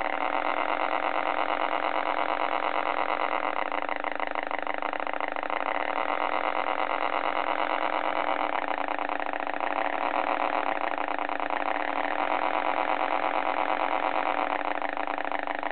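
Sound module of a 1/16-scale RC Diamond T M20 tractor model playing a simulated truck engine idling steadily through the model's small speaker, thin and with no deep bass.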